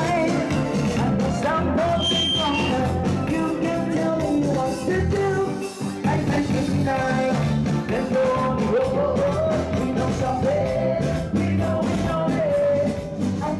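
Amplified live band music with a male singer over electric guitar and a steady beat, played through PA speakers.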